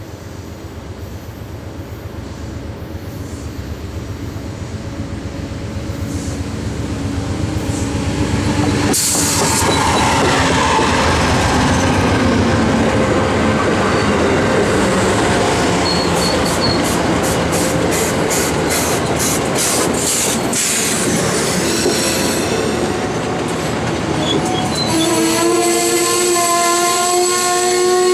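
Amtrak passenger train approaching and passing close by. Its rumble grows over the first eight seconds or so, then the passenger cars roll past with a quick run of wheel clicks over rail joints. A steady ringing wheel squeal of several tones sets in near the end.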